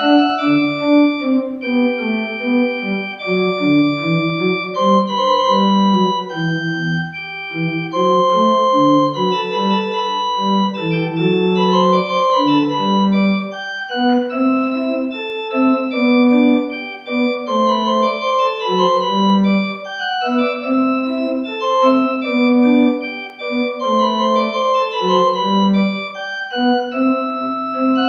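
Organ music: held chords with moving lines, played continuously.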